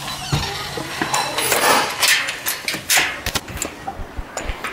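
Keys jingling on a ring while a door and a metal mesh screen door are opened and handled: a run of sharp metallic clinks and knocks.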